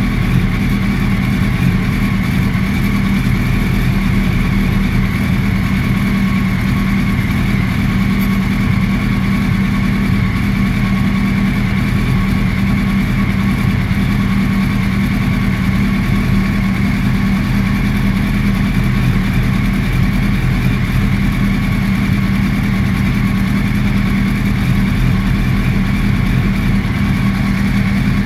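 2008 Yamaha R1's inline-four engine running through an Akrapovic exhaust on a roller dyno, held at one steady speed with no revving, as it is mapped with a Rapid Bike module.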